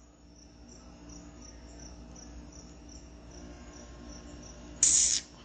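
Faint, high-pitched cricket chirping, repeating evenly a few times a second. About five seconds in, a short, loud burst of hiss cuts across it.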